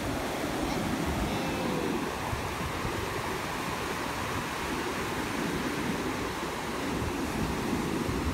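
Ocean surf washing up the beach, a steady rush of breaking waves, with wind rumbling on the microphone.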